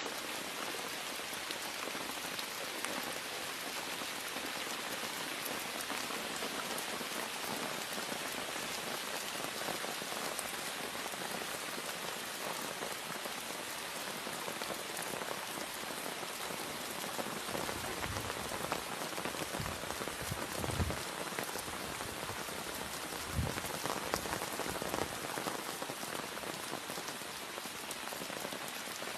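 Steady rain falling, an even hiss of drops with no let-up. A few low thumps come through a little past the middle.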